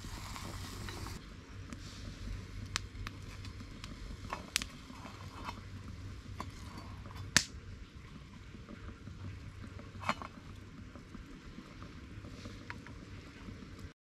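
Open wood campfire crackling with scattered sharp pops, over a steady low hiss and bubbling from the pans cooking on it: mushrooms frying in oil and rice water at the boil.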